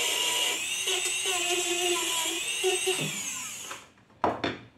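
Handheld rotary tool (micro-grinder) with a small abrasive wheel running at high speed, a steady high whine that changes pitch as the wheel bears on the burnt, carbonized contacts of an electric shower to clean them. About three seconds in it is switched off and winds down, followed by a short knock near the end.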